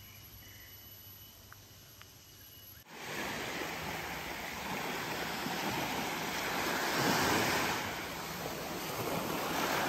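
Small waves washing onto a sandy beach, the surf swelling and easing, with wind on the microphone. The surf begins abruptly about three seconds in, after a quiet stretch with a faint steady high whine.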